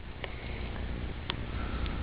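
A sleeping man breathing quietly in the pause between snores, over a steady low rumble with a few faint clicks.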